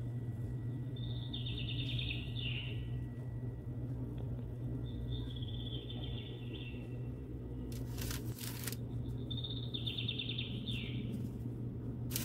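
A bird repeating the same short, high trilled chirping phrase three times, about four seconds apart, over a steady low hum. A brief rustle of handling comes about eight seconds in and again at the end.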